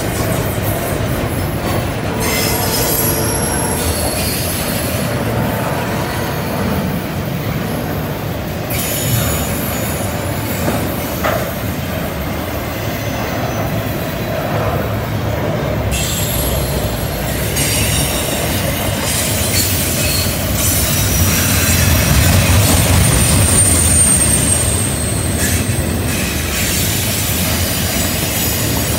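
Double-stack container well cars rolling past on a curve: a steady rumble of wheels on rail, with high-pitched wheel squeal coming and going, most of it in the second half, from the wheel flanges rubbing through the curve.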